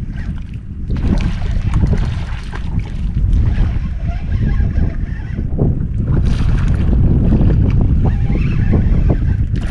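Wind buffeting the microphone, with water lapping at a small boat and scattered short splashes and clicks, as a hooked redfish is fought on a spinning rod.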